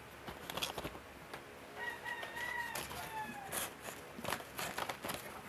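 A rooster crowing once, about two seconds in: one long call that drops in pitch at its end. Light clicks and taps of small items being handled sound around it.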